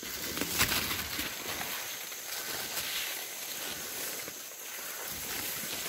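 Leaves and branches rustling and footsteps crunching as someone pushes through dense jungle undergrowth. Irregular brushing and snapping sounds sit over a steady high-pitched hiss.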